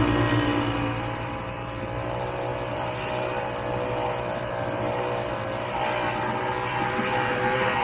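Vintage Ski-Doo snowmobile's two-stroke engine running at a steady, held throttle while the sled is under way, its pitch nearly constant with a slight dip in loudness about a second in.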